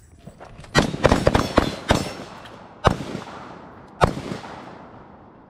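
Several rifles firing together on a range: a rapid, uneven run of about six shots in the first two seconds, then two more single shots about a second apart, each trailing off in echo.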